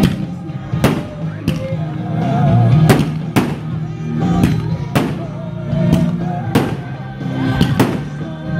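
Music, a song with a wavering sung melody, cut through by sharp loud cracks about every half second to a second.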